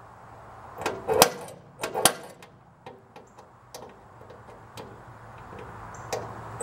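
Spring-loaded automatic center punch snapping as it is pressed into an aluminum trailer deck: two sharp clicks about a second apart, each with a smaller click just before, then a few faint ticks. It is punching dimples to guide the drill bit for pilot holes.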